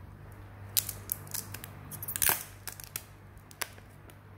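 Clear protective plastic film being peeled off a new smartphone, crinkling and crackling in a string of sharp, irregular snaps, the loudest a little over two seconds in.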